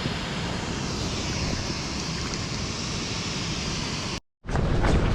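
Steady rushing noise of the river's flowing water below the weir, with wind on the microphone. It cuts off abruptly about four seconds in, and a louder, rougher stretch of the same kind of noise follows.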